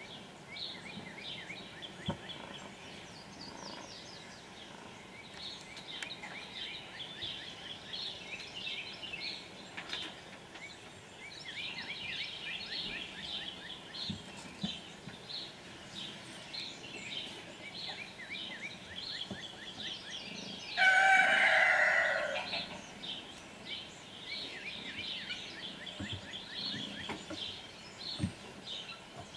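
Small birds chirping throughout. About two-thirds of the way through, a rooster crows once, loudly, for a second and a half or so.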